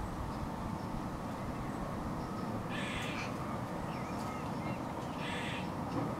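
Two harsh, cawing bird calls, about two and a half seconds apart, over a steady low rumble.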